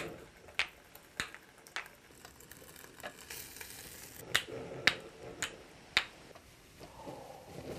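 Wooden kendama ball clacking against the toy's cups and spike, sharp knocks about every half second: four, a pause of a couple of seconds, then four more.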